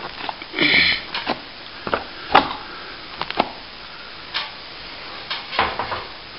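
Irregular scrapes and clicks of a plasterer's trowel pressing cornice cement into a gap behind a ceiling cornice, with one sharp knock about two and a half seconds in.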